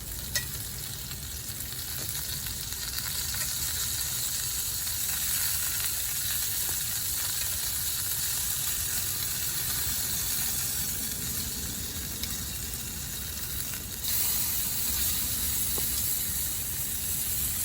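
Chicken frying in a pan over a campfire: a steady sizzle that grows a little louder near the end.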